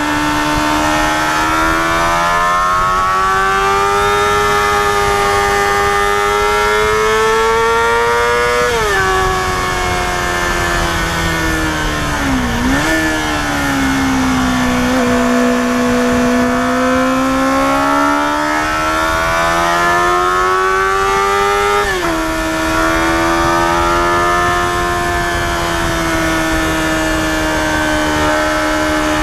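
Yamaha FZR250R's high-revving 250 cc inline-four engine pulling uphill under load, with wind rush. The revs climb and drop sharply at an upshift about nine seconds in, sink lower with a brief dip and recovery a few seconds later, then climb again to another sharp upshift drop a little past twenty seconds and hold steady.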